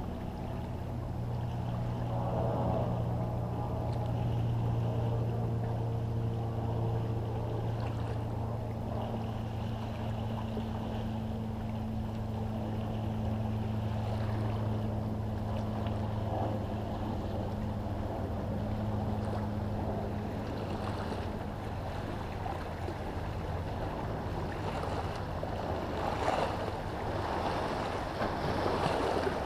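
A boat's engine running steadily with a low hum out on the water, fading in the second half; near the end, small waves wash and splash against the shoreline rocks.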